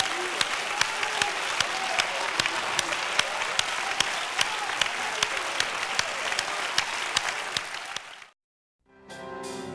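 Church congregation applauding and clapping over music, with a sharp steady beat of about two to three hits a second. It fades out after about eight seconds, and following a brief silence, different music starts near the end.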